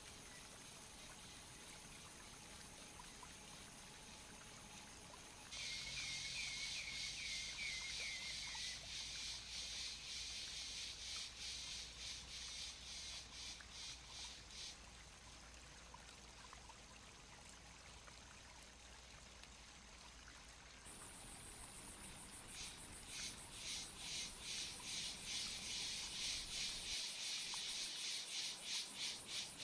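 Insects chirring in loud, even, rapid pulses. The chirring starts abruptly about five seconds in, stops about fifteen seconds in, and starts again from about twenty-one seconds, with a faint short run of chirps under the first stretch.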